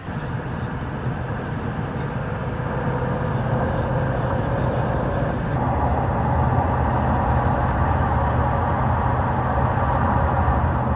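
A vehicle running with a steady low engine hum and rushing noise, growing louder over the first few seconds; a brighter rushing noise joins about halfway through.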